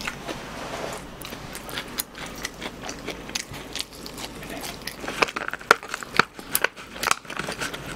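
Close-miked crunching and chewing of crispy fried food: a run of sharp crackling bites that grows denser and louder from about five seconds in.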